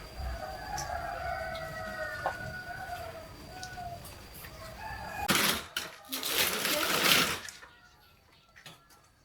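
A rooster crowing once, a long drawn-out crow. About five seconds in comes a loud rushing noise lasting about two seconds.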